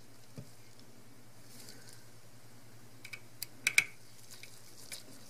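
Light, sharp clicks of a small metal tool against the screws and metal frame of a disassembled Canon 6D camera body: one early, then a quick cluster about three to four seconds in, and one more near the end.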